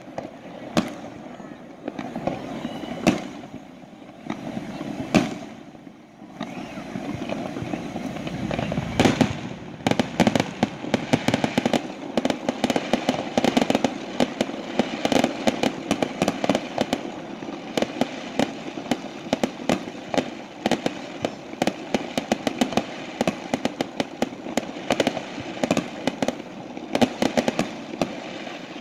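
Fireworks display: aerial shells bursting with sharp bangs, a few seconds apart at first, then from about nine seconds in a dense, rapid barrage of bangs and crackling.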